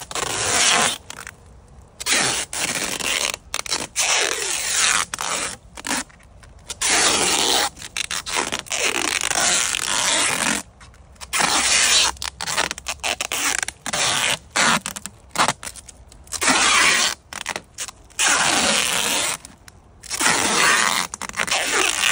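Adhesive tape being pulled off the roll in repeated loud, ripping pulls of about a second each with short pauses, pressed down over plastic stretch wrap.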